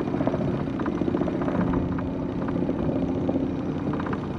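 Small boat's outboard motor running steadily at trolling speed, a constant drone with a fine rapid pulse.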